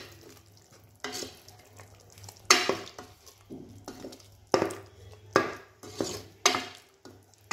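Spoon stirring mutton pieces in hot oil in a cooking pot: a string of sudden scraping strokes against the pot at irregular spacing, over a soft sizzle of frying.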